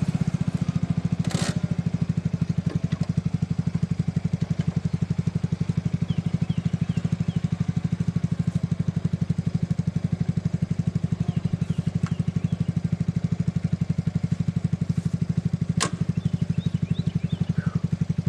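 Small off-road buggy engine idling with a steady, even pulsing beat. Two sharp clicks are heard, one early and one near the end.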